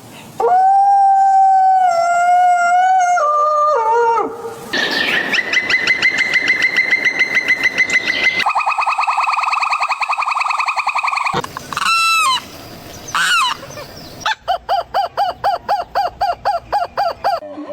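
A run of different animal calls, one after another: a long held call that drops in steps, two long rapidly trilling calls, a few short downward-sliding cries, then a call repeated about four times a second.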